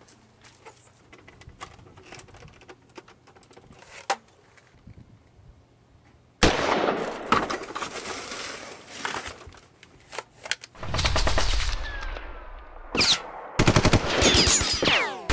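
Bursts of rapid automatic gunfire. It starts suddenly about six and a half seconds in, after a few quiet seconds of faint taps, and comes back in several runs with falling whines near the end.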